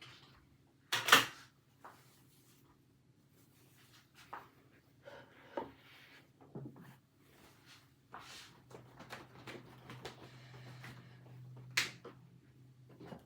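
Scattered knocks and clicks of things being handled in a kitchen. The loudest is a sharp knock about a second in, with another near the end. A low steady hum comes in during the second half.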